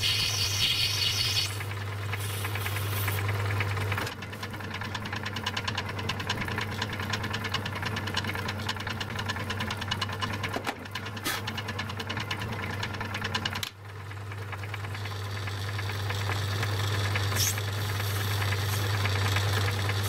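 Metal lathe running with a steady motor hum and a light rattle while turning a brass bush, with a high cutting noise in the first second or two. About two-thirds through the sound dips suddenly, then builds back up.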